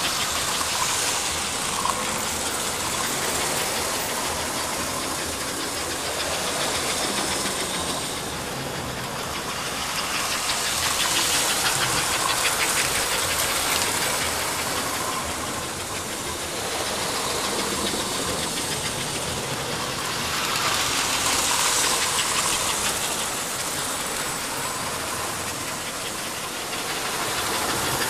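American Flyer S-gauge toy trains running on the layout: a steady clattering rumble of motors and wheels on track, growing louder twice as a train comes near and then fading.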